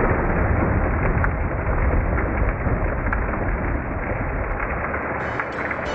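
Thunderstorm sound effect: steady rain with deep rumbling thunder and scattered sharp crackles. Music begins to come in near the end.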